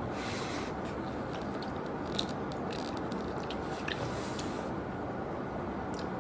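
Close-up eating sounds of someone chewing a cheese-filled pizza: scattered wet mouth clicks and soft smacks over a steady background hiss.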